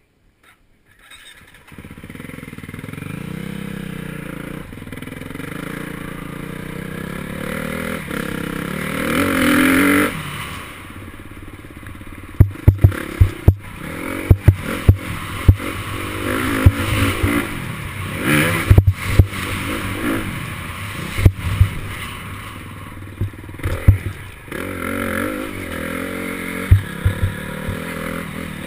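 Off-road dirt bike engine heard close up from the rider's helmet camera while riding a dirt trail, building up in pitch and level for the first several seconds before dropping back. From about halfway in, many sharp knocks and clatter come through over the engine as the bike runs over the rough trail.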